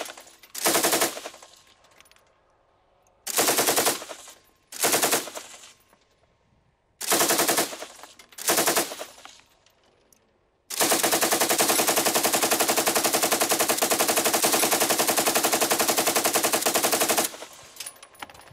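Turret-mounted PKM 7.62 mm machine gun firing: five short bursts, then one long burst of about six and a half seconds at roughly ten shots a second.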